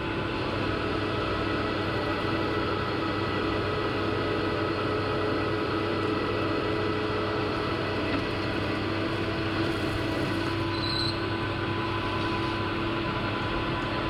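Metal lathe running steadily under power, taking the final turning cut down to 18 mm diameter on a hydraulic fitting, with a constant hum and whine.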